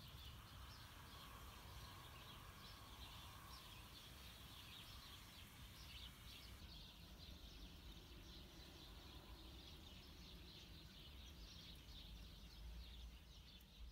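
Faint outdoor ambience: small birds chirping and twittering over a low rumble.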